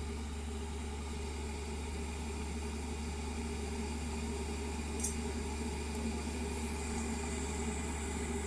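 Borosil electric kettle heating water close to the boil, the water making a steady steam sound over a constant low hum. A single brief tick about five seconds in.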